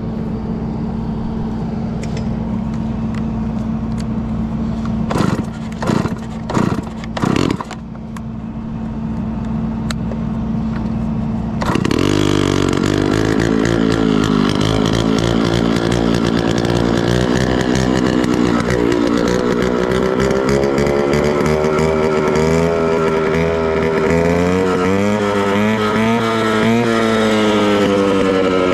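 Gas-powered concrete saw cutting asphalt. A steady engine hum is broken by four short loud bursts. About twelve seconds in the saw suddenly comes up to full speed and runs loud to the end, its pitch wavering as the blade works through the cut.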